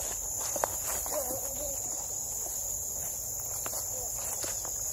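Insects in a steady, high-pitched chorus, with a few light clicks over it.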